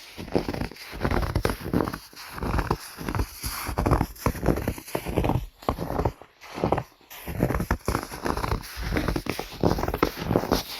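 Footsteps crunching in snow at a steady walking pace, about two crunches a second.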